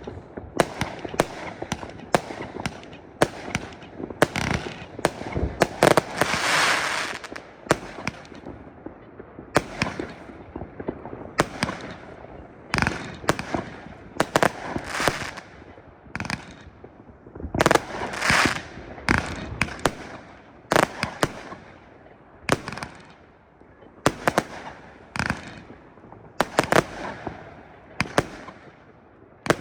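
Fireworks going off: many sharp bangs in quick, irregular succession, with a few longer noisy bursts lasting a second or so.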